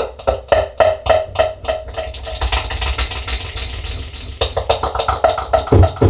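Beatboxing into a handheld microphone through an echo effect: a quick, steady beat of clicks and drum-like mouth sounds, about four a second, each trailing off in echo.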